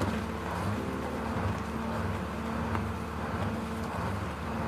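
Boat engine running steadily, a continuous even hum under the deck.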